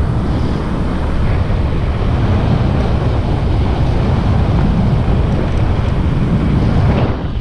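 Wind buffeting the microphone of a rider moving along a road, over the steady running noise of the vehicle. A steady rush, heaviest in the low end, dipping briefly near the end.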